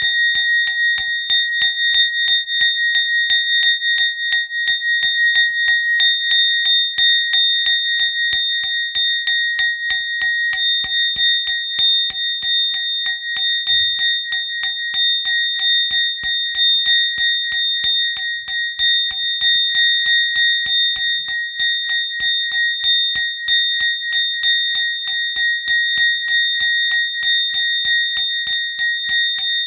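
A small hand bell rung continuously for prayer, several even strokes a second over a bright, high ringing tone that never stops.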